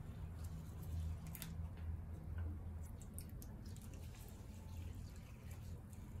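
Water from a small plastic watering bottle trickling and dripping onto a potted plant's soil, faint, with light clicks from the bottle.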